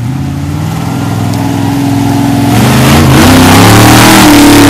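Monster truck engine revving as the truck accelerates past, its pitch climbing and the sound growing louder over the second half.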